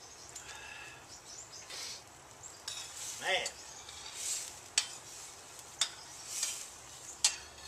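A metal spoon stirs and scrapes shrimp and vegetables cooking in butter and stock in a skillet, which is sizzling. The spoon clanks sharply against the pan three times in the second half.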